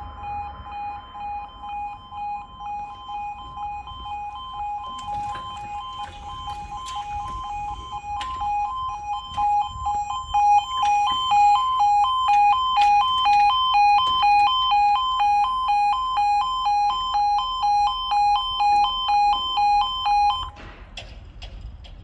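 Level crossing warning alarms sounding a two-tone yodel that switches back and forth between two pitches about twice a second. It grows louder about halfway through, with scattered clicks and knocks, and cuts off suddenly near the end once the full barriers are lowered.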